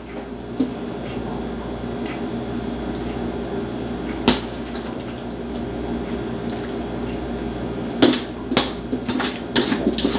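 A kitchen utensil knocking against a baking dish: one sharp clink about four seconds in, then several quick knocks near the end, over a steady background hum.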